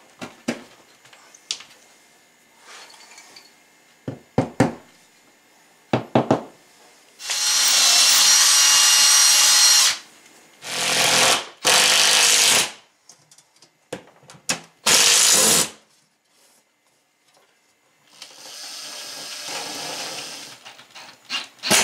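Power drill running in several bursts against the wall, the longest about three seconds, after a few sharp knocks. It is fixing a microwave mounting bracket to the wall with plugs and screws.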